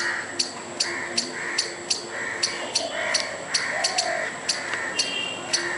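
Squirrel giving its alarm call at a dog: sharp chips repeated evenly, about two to three a second, each with a short raspy tail.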